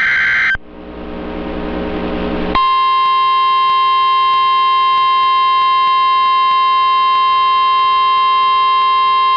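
Emergency alert audio: the tail of a buzzy EAS header data burst cuts off just after the start, a rising hiss follows, and about two and a half seconds in the NOAA Weather Radio 1050 Hz warning alarm tone begins as one steady, loud tone that holds.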